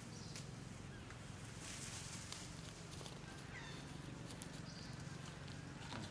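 Quiet outdoor ambience with a low steady hum, and faint scattered ticks and rustles of dry leaves as a macaque shifts and walks over the leaf litter.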